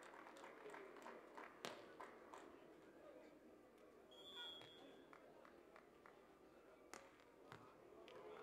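Faint crowd murmur at a beach volleyball match, with a sharp slap of a hand on the ball about a second and a half in as it is served and another hit around seven seconds. A brief high tone sounds about four seconds in.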